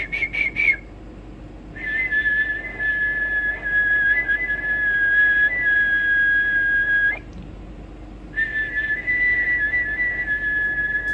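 A man whistling long, steady high notes in which two close pitches sound together. A short warbling burst comes right at the start, then one long note of about five seconds, a short break, and a second long note near the end.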